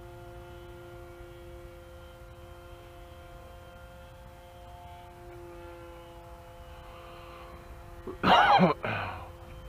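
Radio-controlled flying-lawnmower model aircraft's motor droning steadily in flight, an even hum. About eight seconds in, a short loud vocal sound from a person close to the microphone.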